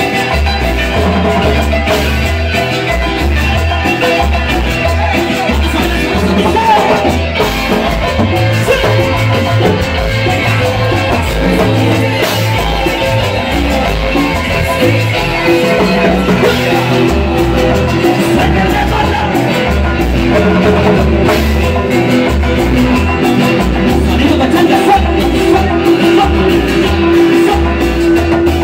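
Cumbia band playing: keyboard, guitar and percussion over a steady, repeating bass beat, with singing.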